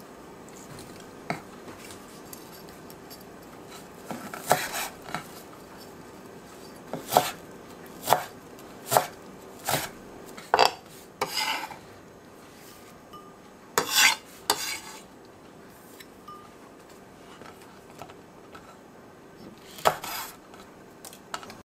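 Kitchen knife cutting on a wooden cutting board: about a dozen separate, irregularly spaced knocks as wild chives are sliced, with one more cut into a hot green chili near the end.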